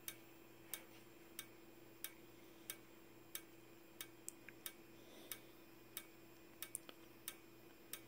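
Simplex 4903-9219 strobe flashing on 24 V DC with its horn off: a faint sharp tick with each flash, about three every two seconds, with a few smaller extra clicks in between. A faint steady whine from the strobe's capacitor runs underneath.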